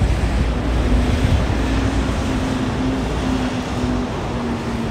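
Wind buffeting the microphone over city street traffic noise, a steady low rumble, with a faint low hum-like tone that comes and goes in short pieces from about a second in.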